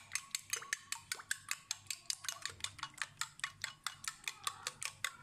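Raw eggs being beaten with a fork in a glass bowl: quick, regular clinks of the fork against the glass, about six a second.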